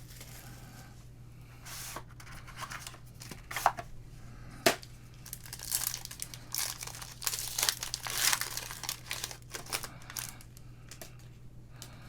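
Plastic wrapping of a sealed basketball trading card box being torn open and crinkled by hand, in irregular rustling bursts with one sharp snap about five seconds in.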